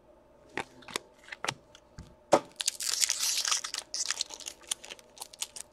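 A few separate clicks and taps, then from about halfway in a crinkly tearing and rustling with many small crackles: a foil trading-card pack wrapper being handled and torn open.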